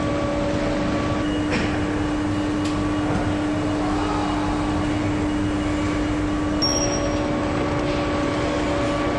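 Steady factory-floor machinery hum with a constant low tone, and a few faint clicks.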